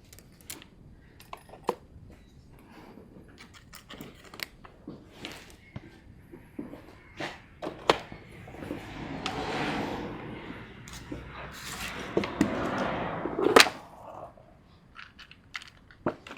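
Hands at work on a car's wiring repair: scattered small clicks and knocks, with a longer rough rasping stretch in the middle that ends in a sharp knock.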